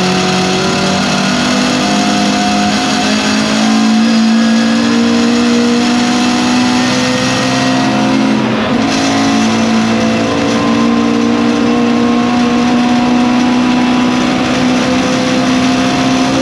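Lotus Cortina's twin-cam four-cylinder race engine heard from inside the cockpit, accelerating hard out of a corner with its note climbing. About halfway through there is one upshift, and the note then climbs again.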